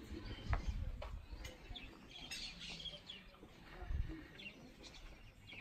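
Parrots chirping and calling in short, scattered notes, with a few low thuds about half a second in and again near four seconds.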